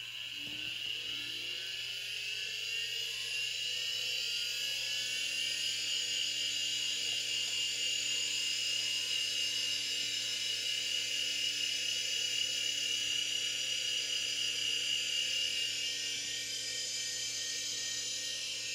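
Quantum Bigfoot 5.25-inch hard disk drive spinning up: a whine that rises in pitch over the first five seconds or so, then holds as a steady high whine once the platters reach full speed.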